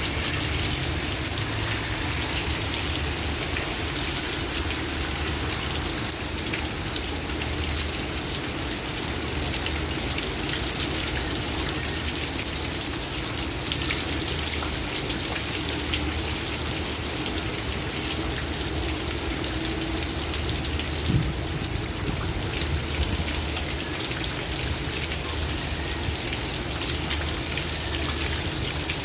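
Heavy rain falling steadily, a dense hiss of drops striking surfaces, with one brief low thump about three-quarters of the way through.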